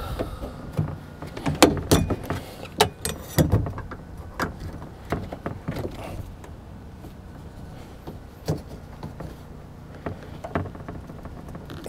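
Plastic trim stick and belt molding puller prying and working a tight-fitting window belt molding along the door sill of a 2015 Jeep Grand Cherokee: irregular clicks, knocks and scraping of plastic and rubber, busiest in the first few seconds and sparser after.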